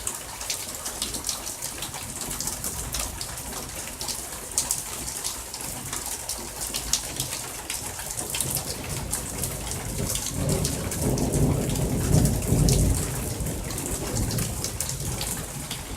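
Heavy rain falling steadily, with individual drops ticking close by. About ten seconds in, a low roll of thunder swells for a few seconds and then fades.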